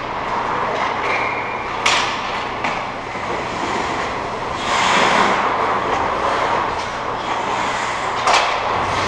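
Ice hockey in play in an indoor arena: skate blades scraping the ice under a steady din, with sharp clacks of stick on puck about two seconds in and again near the end, and a longer scraping hiss around the middle.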